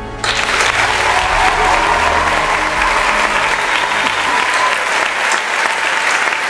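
A large audience applauding: dense, steady clapping that starts abruptly a moment in and keeps up at full strength.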